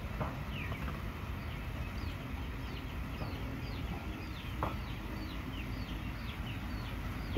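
Chickens calling in a steady run of short, high chirps, each falling in pitch, about two or three a second, over a low steady rumble.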